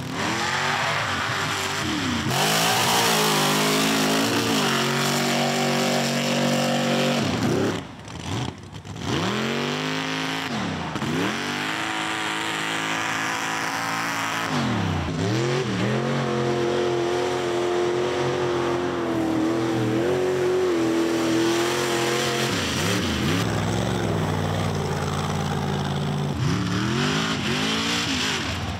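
Mud bog race truck engine held at high revs, its pitch dipping and climbing back up several times as the throttle comes off and goes back on. The sound drops away briefly about eight seconds in.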